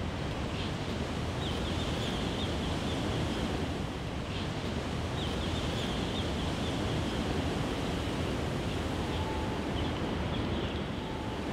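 Outdoor ambience: a steady rushing background noise with birds chirping in short runs every few seconds.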